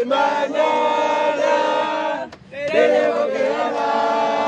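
A crowd of voices singing a chant together in long held notes, in two phrases with a brief break between them about two seconds in.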